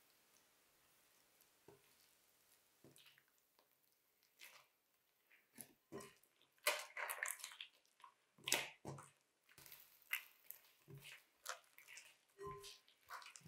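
Bread dough being squeezed and kneaded by hand in a glass bowl as olive oil is worked into it. It makes a run of short, irregular squishing sounds that start about four seconds in and are busiest in the middle.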